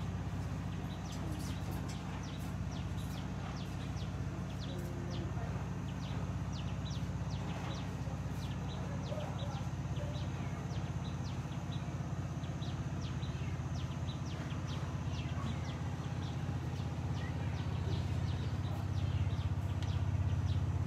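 Steady low hum, with many short high chirps scattered throughout; the hum swells a little near the end.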